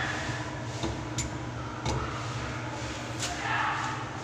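A few light clicks and a brief rubbing sound as a hand handles the brass drain fitting under a washbasin, over a steady low hum.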